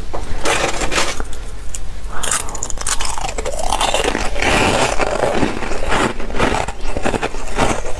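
Flaky frost ice being bitten and chewed close to the microphone: a rapid, irregular run of crisp crunches that keeps going without a break.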